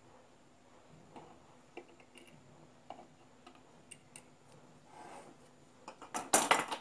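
Light metallic clicks and clinks of pliers and thin metal shim strips being handled against a small blower motor's stator and housing, with a louder, rapid metallic clatter near the end.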